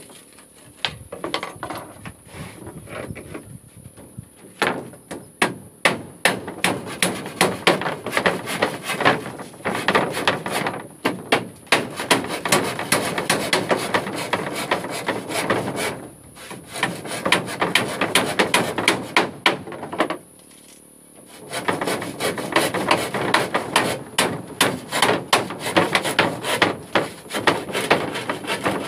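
Hammer driving nails into wooden floorboards: runs of quick blows, with a couple of short pauses.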